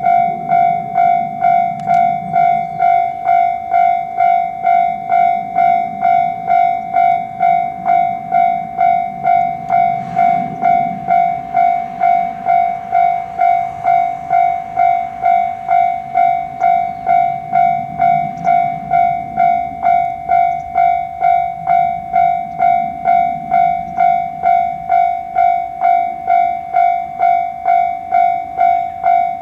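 Japanese level-crossing warning alarm ringing its repeated electronic 'kan-kan' tone at an even pace of about two strikes a second, with the low rumble of a train swelling and fading beneath it.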